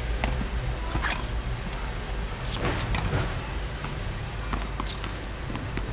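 Outdoor ambience: a steady low rumble with scattered light clicks, and a thin high whistle about five seconds in.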